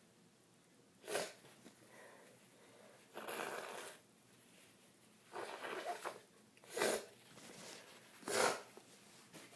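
A woman with a bad cold sneezing: three short, sharp sneezes, one about a second in and two near the end, with longer breathy sounds between them.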